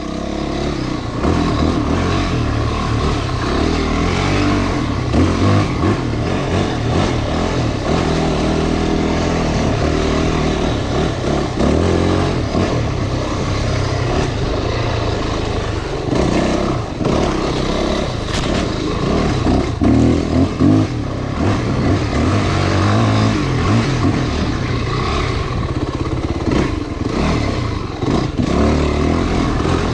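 Off-road motorcycle engine running under way on a dirt trail, its pitch rising and falling with the throttle.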